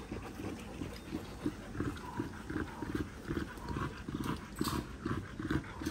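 Puppies play-growling in a quick run of short grunts, about two to three a second, as they wrestle roughly.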